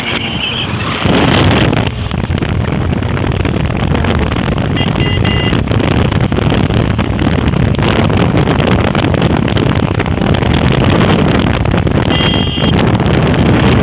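Wind buffeting the phone's microphone, with the steady rumble of a moving road vehicle underneath, heard from a rider sitting out in the open.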